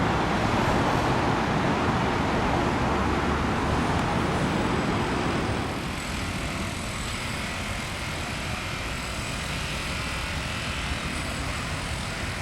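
Steady vehicle noise, louder at first and easing off about halfway through.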